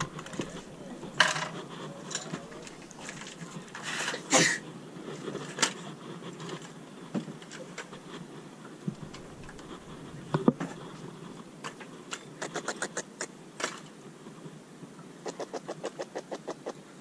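Handling sounds of landing a small fish on a spinning rod: scattered clicks and knocks as the reel is wound and the fish is lifted and gripped. Near the end come runs of rapid, evenly spaced ticks.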